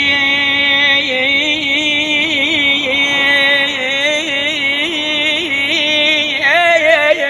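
A singer holding one long sustained note in Middle Eastern style, decorated with small wavering turns, then breaking into a quicker melismatic run near the end.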